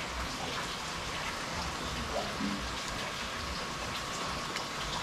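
Rain falling steadily, with a few scattered drop ticks.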